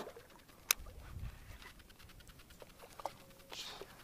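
Faint splashing and small knocks from a hooked chain pickerel thrashing at the water's surface beside a kayak, with one sharp click under a second in.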